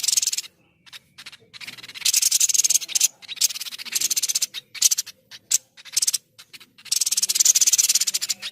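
Tepus dada putih babbler ('sniper') calling: harsh, high-pitched rattling chatter in about five bouts of very fast pulses, the longest near the end running about a second and a half, with short silent gaps between.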